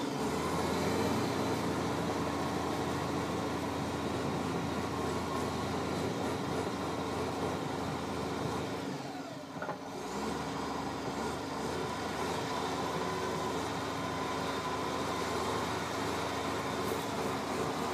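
Case 1450C crawler dozer's diesel engine running steadily under load as the machine pushes through swampy mud, with a brief dip in level about halfway through.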